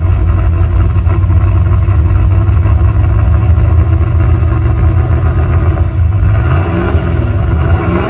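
Custom-built hot-rod V8 with a carburettor and distributor ignition, idling loud and steady with a deep rumble. Near the end the pitch rises briefly twice, as if the throttle were blipped lightly.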